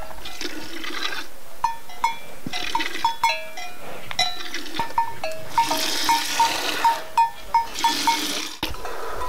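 A cow being milked by hand into a plastic bucket: squirts of milk hitting the bucket in a steady rhythm, about two a second, over a constant hiss.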